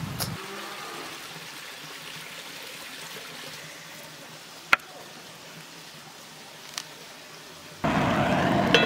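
Faint steady hiss of outdoor ambience with two sharp clicks, then near the end a much louder, even noise of a wood fire burning in a stove.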